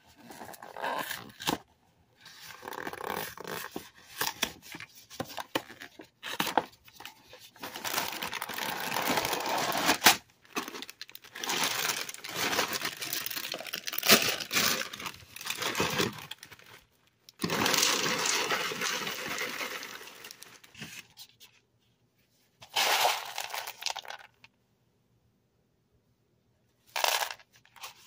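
A cardboard cereal box being opened, then its plastic liner bag crinkling and tearing open in long stretches of rustling. Near the end come a few short bursts as the corn cereal is poured into a bowl.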